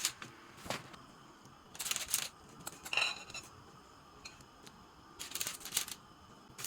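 Scattered light clicks, a brief clink and rustling of small objects being handled, in four short clusters with quiet between them.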